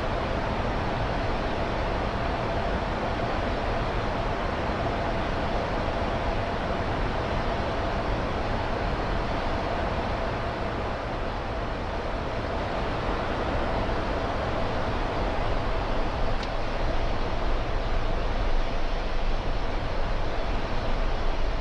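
Steady flight-deck noise inside a Boeing 747-400 cockpit in descent: a rushing airflow and air-conditioning hiss with a faint steady tone, growing slightly louder in the second half.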